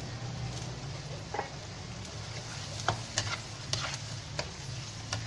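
A black spatula stirring vegetables in simmering broth in a non-stick wok, knocking and scraping against the pan in half a dozen sharp clacks over the last few seconds, over a steady sizzle and low hum.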